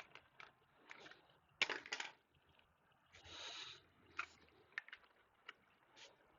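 Handling noise: scattered light clicks and taps with a few short rustles, the loudest a quick cluster of knocks about a second and a half in.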